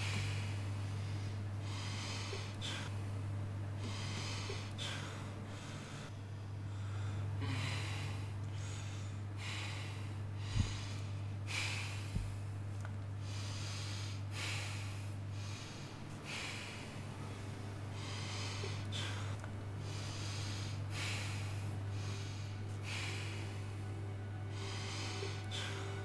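A boxer breathing hard in short, noisy breaths, about one a second, over a low steady hum.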